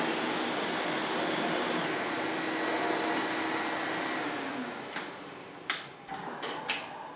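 Rotho Twin TT water-filter canister vacuum running steadily with a whine, switched off about four seconds in and winding down. A few sharp knocks follow.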